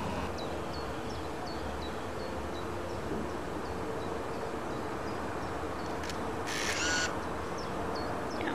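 Outdoor ambience on an old camcorder's microphone: a steady hiss with a faint low hum, and a short high chirp repeating about twice a second. A brief, harsher high burst comes about six and a half seconds in.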